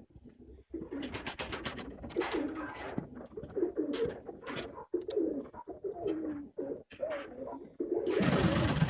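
Pigeons cooing repeatedly in low, wavering calls. Two bursts of rapid clattering noise break in, one about a second in and a louder one near the end.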